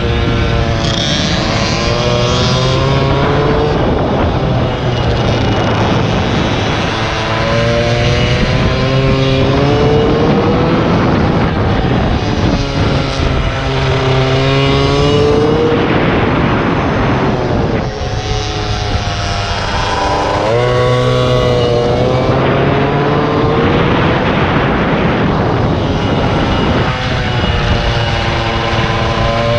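Air-cooled 70 cc Polini minimotard engine being ridden hard: the revs climb in pitch along each straight and drop off into the corners, about five times over, with wind rushing over the on-board microphone.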